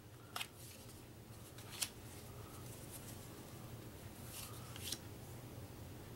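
Faint handling of a paper game card on a wooden table: two light clicks early, then a short papery scrape a little past halfway, over a steady low hum.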